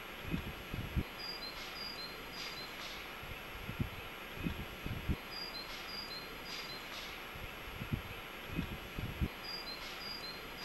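Outdoor ambience of small birds chirping over a steady hiss, with clusters of soft low thuds. The same pattern of chirps and thuds comes round about every four seconds, like a looped background track.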